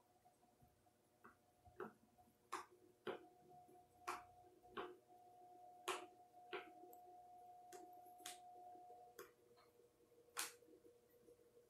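About a dozen light, irregularly spaced clicks and taps of a paintbrush and painting tools on hard surfaces, over a faint steady hum.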